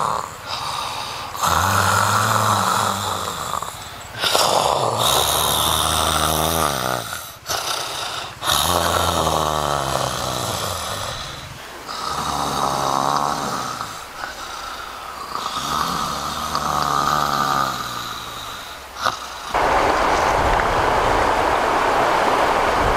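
A person snoring loudly: about six long, drawn-out snores, each lasting a few seconds with short breaks between. Near the end the snoring stops and a steady rushing noise takes over.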